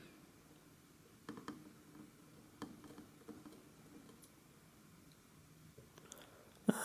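Faint, scattered clicks and light taps from hand-soldering work on a small circuit board, over quiet room tone.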